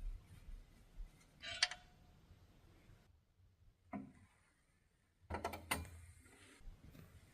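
Faint handling sounds of PC parts or their packaging: a short rustle, a single tap, then a quick cluster of small clicks.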